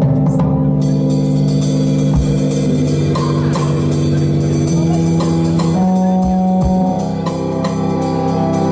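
Live band music: a synthesizer holds organ-like chords that change a few times, over a drum kit playing steadily.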